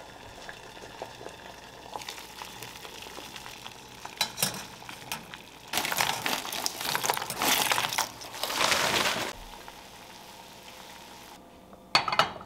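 Hissing, bubbling water in a stainless saucepan on the stove, with light metal clinks. From about six to nine seconds there is a loud rustling hiss as dumplings are tipped from a plastic bag into a mesh strainer set over the pot. A short metal clatter comes near the end.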